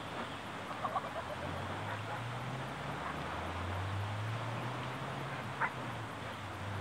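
Steady beach ambience of wind and gentle surf, with a low motor drone rising slightly in pitch from about a second and a half in. Two short distant dog barks come about a second in and near the end.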